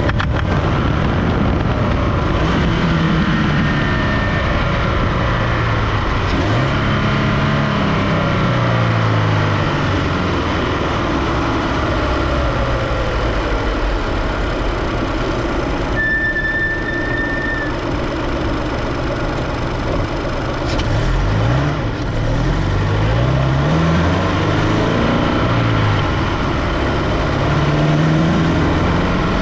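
Supercharged Scion FR-S's 2.0 L flat-four engine running under varying load, its pitch rising and falling over and over as the revs change. A brief high steady whistle sounds about sixteen seconds in.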